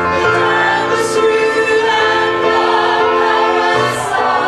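A small group of singers holding a sustained chord in close, clashing harmony, moving to a new chord near the end.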